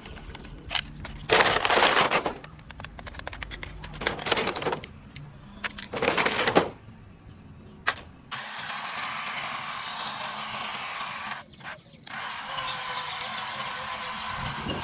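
Toy RC excavator's small electric motors and gears working in short loud bursts, then running steadily from about eight seconds in.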